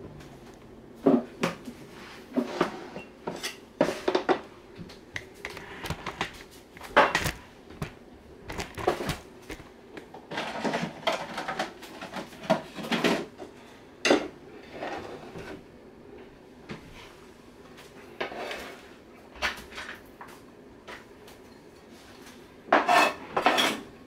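Kitchen dishes and utensils being handled on a counter: scattered knocks, clinks and scrapes, with a busier run of them near the end.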